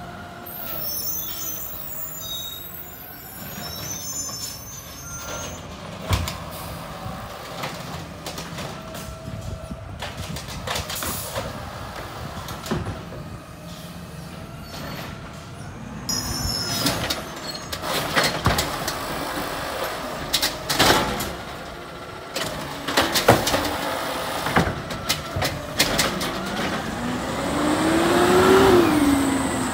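Automated side-loader garbage truck running, with air-brake squeals and hisses and scattered metallic clanks and bangs. Near the end a whine rises and falls.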